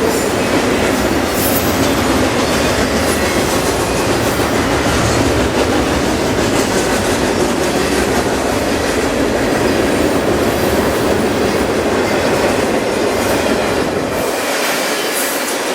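A train rolling past: a steady, loud rumble of wheels on the rails, with faint repeated ticks. The deep part of the rumble falls away near the end.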